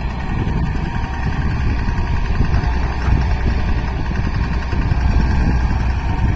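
Excavator's diesel engine running steadily: a loud, continuous low rumble with a faint steady tone above it.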